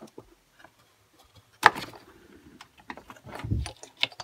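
Plastic parts of a Stihl BG86 blower's handle housing clicking and knocking as the handle half is pulled off by hand: one sharp click about one and a half seconds in, a few lighter clicks, and a dull knock about three and a half seconds in.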